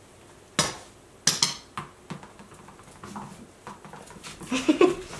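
Puppy play on a hardwood floor: several sharp clacks on the floor in the first two seconds, then a short, wavering, high squeal a little before the end.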